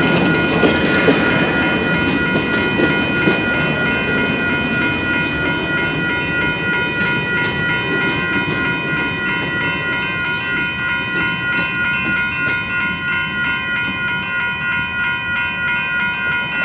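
Railroad crossing bell ringing steadily as a BNSF train rolls through the crossing, its wheels clicking over the rail joints and its rumble slowly fading.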